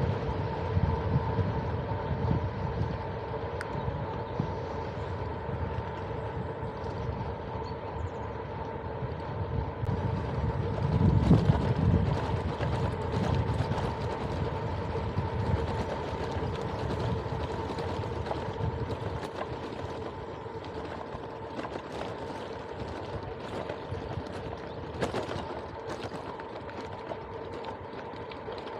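Riding noise from a loaded touring bicycle: tyre rumble and wind on the handlebar-mounted microphone. The rumble is heaviest about eleven seconds in and thins out after about nineteen seconds, over a steady thin whine.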